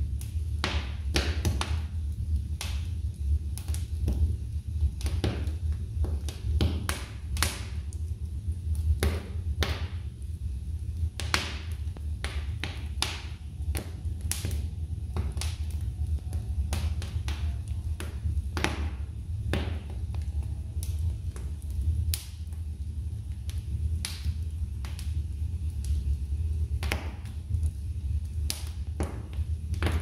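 Fire burning in a fireplace, crackling with irregular sharp pops and snaps over a steady low rumble.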